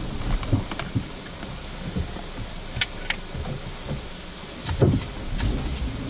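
Jimny rolling slowly over a rough dirt road: gravel crunching with scattered clicks and knocks, and one heavier thump about five seconds in.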